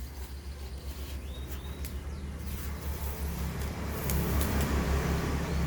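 A motor vehicle engine running with a low, pulsing rumble that grows louder about three seconds in.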